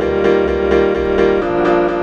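Background music: a piano-led instrumental with evenly repeated notes, changing chord about one and a half seconds in.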